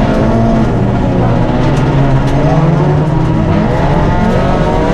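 Small rally car's engine at high revs, heard from inside the cabin on a gravel stage. The revs dip and climb again as the driver lifts and accelerates, with a few sharp ticks on top.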